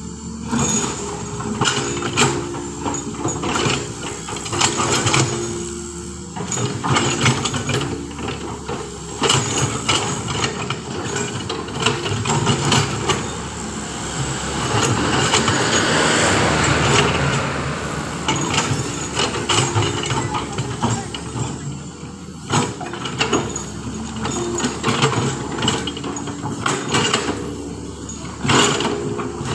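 Heavy diesel engines of trucks running at road works, with repeated clanks and knocks throughout and a broad swell of noise that rises and fades about halfway through.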